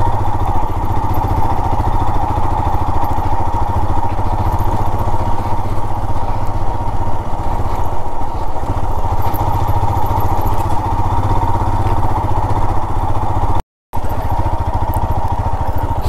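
Motorcycle engine running steadily while riding along at low speed, heard from on the bike. The sound cuts out for a split second near the end.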